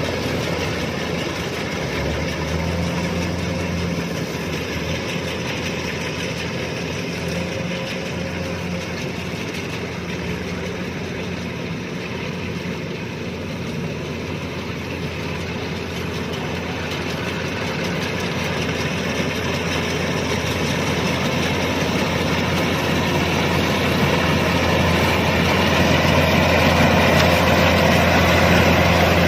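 Kubota DC-105X combine harvester running steadily, its engine hum mixed with a broad mechanical rush of the harvesting machinery; it grows gradually louder over the second half.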